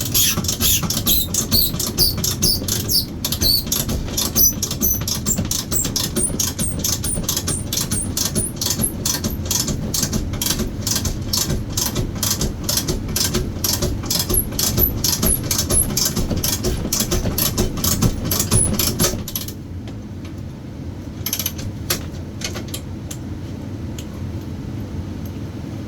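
Ratchet wrench clicking rapidly, about four clicks a second, as it draws a manual knockout punch through the steel enclosure to cut a hole; the ratcheting stops abruptly about 19 seconds in, followed by a few single clicks. A steady low hum runs underneath.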